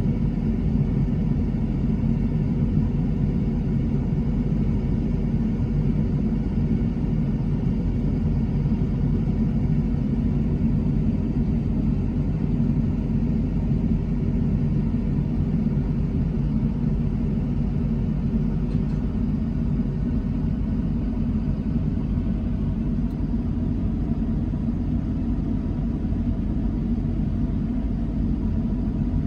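A vehicle engine running at a steady speed, a constant low drone with no change in pitch or level.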